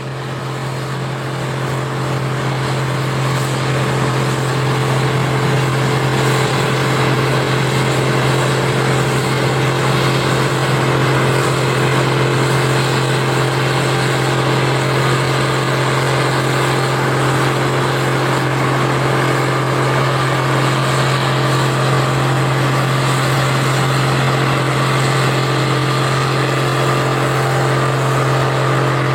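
Case International 1660 Axial Flow combine running steadily while harvesting corn, its engine and threshing machinery giving a constant loud hum and whir. It grows louder over the first few seconds, then holds steady.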